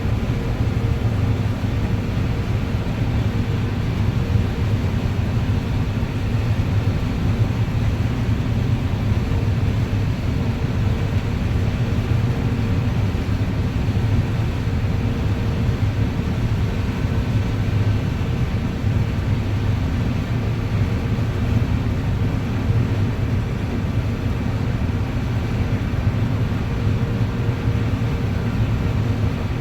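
Combine harvester running steadily while shelling corn: an even low drone with a faint steady hum above it.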